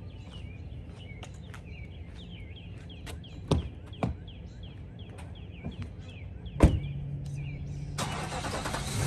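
Pickup truck with a steady low engine hum, birds chirping over and over, and a few thumps, the loudest about two-thirds of the way through as the truck's door is shut. A louder steady rushing noise sets in about a second before the end.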